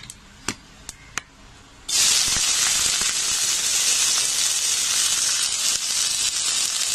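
A few sharp pops of mustard seeds spluttering in hot oil, then about two seconds in a sudden loud sizzle as chopped onion and curry leaves drop into the hot oil in the kadhai, hissing steadily.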